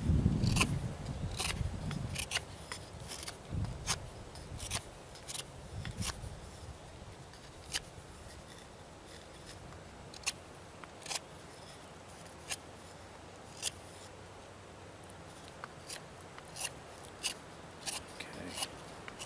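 Habilis Bush Tools Trapper knife shaving wood to taper a bow-drill spindle to a point: a series of short, crisp scraping strokes, about one a second at first, then more spread out, and quicker again near the end.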